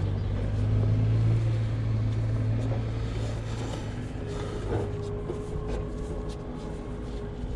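Telehandler's diesel engine running steadily, with a steady higher whine joining about four seconds in.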